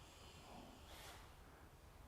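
Near silence: faint room tone in a workshop, with a soft brief rustle about halfway through.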